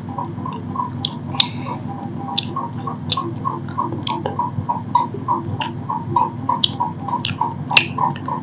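Fingers mixing rice and curry on metal plates, with scattered sharp clicks against the metal. Under it run a steady low hum and a regular ticking about three times a second.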